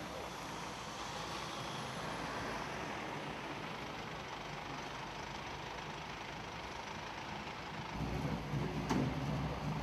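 Fire engines' diesel engines idling steadily. About eight seconds in the sound turns louder and deeper, with a single knock shortly after.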